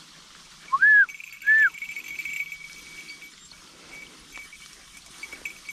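Two short, loud whistles about a second in, a little over half a second apart, each rising then falling in pitch: a hunter whistling to his hunting dogs.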